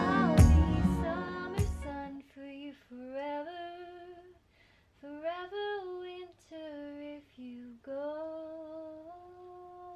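Background music fades out over the first two seconds. Then a woman hums a slow, wordless tune on her own, in held notes that step up and down with short pauses between them.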